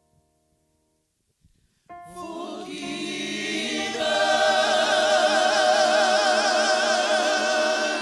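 Gospel choir coming in about two seconds in after a near-silent pause and swelling into a loud, held chord with vibrato, which it sustains until just before the end.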